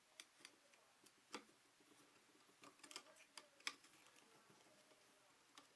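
Faint, irregular small clicks and taps from hands working the wiring at a wall switch box, with two sharper clicks, one about a second and a half in and one near the middle.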